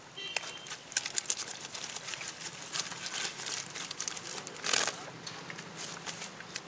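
Irregular crackling and rustling of a cast net and wet fish being handled, with a louder rustle nearly five seconds in.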